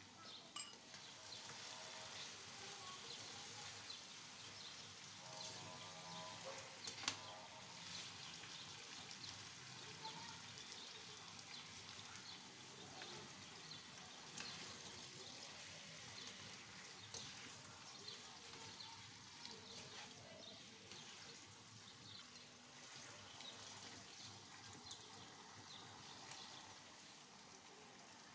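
Chicken and green bell pepper strips sizzling faintly in a nonstick wok, stirred and scraped with a nylon slotted spatula. There is a sharp click about seven seconds in.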